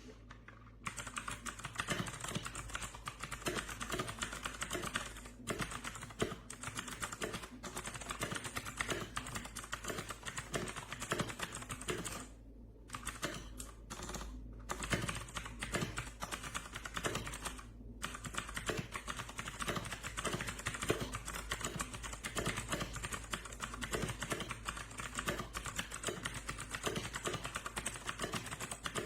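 Fast, continuous typing on an RK Royal Kludge RK61 60% mechanical keyboard: a dense stream of key clicks starting about a second in, broken by a couple of short pauses.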